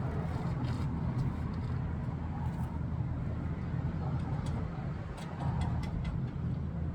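A steady low mechanical rumble with a few light clicks and taps scattered through it.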